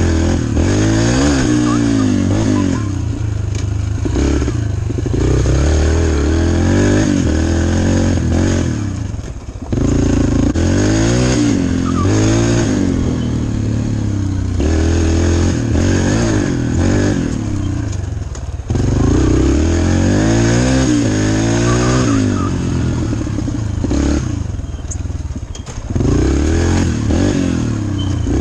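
Dirt bike engine being ridden hard, its pitch climbing and dropping again and again as it revs through the gears. The throttle is backed off briefly about a third of the way in, around two thirds of the way in, and again near the end.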